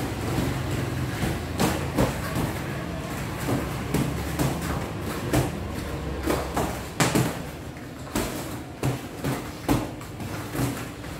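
Boxing gloves thudding irregularly as punches land during sparring, more than a dozen knocks, some in quick pairs. A low steady hum sits underneath and fades out about seven seconds in.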